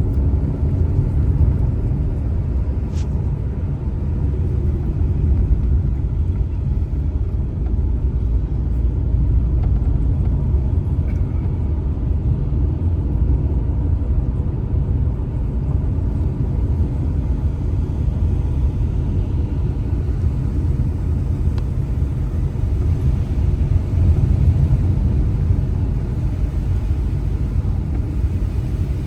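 Car on the move: a steady low rumble of engine and tyre noise, with a faint click about three seconds in.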